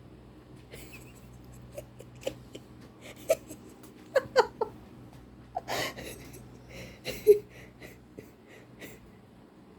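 Cockatiel giving short, soft squeaky chirps mixed with quick clicks while preening hair, the loudest chirp about seven seconds in.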